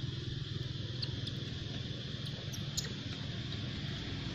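A baby long-tailed macaque giving several short, high-pitched squeaks in quick succession, from about a second in until near three seconds in, over a steady low background hum.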